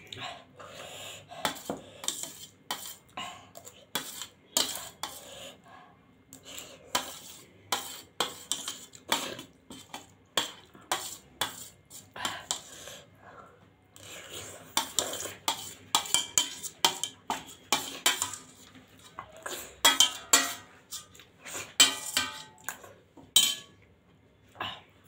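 Metal spoon scraping and clinking against a stainless steel plate, scooping up the last of the noodle sauce. There are many quick scrapes and clicks, and they stop shortly before the end.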